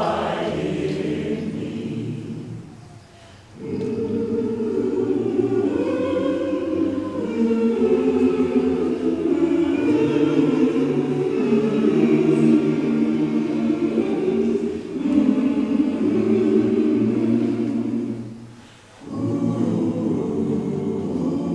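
A choir singing a cappella in sustained chords, with brief breaths between phrases about three seconds in and again near the end.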